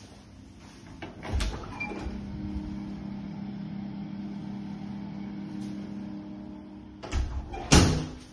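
Ceiling extractor fan in a small toilet room, humming steadily. There is a knock about a second in and two louder knocks near the end, the second the loudest.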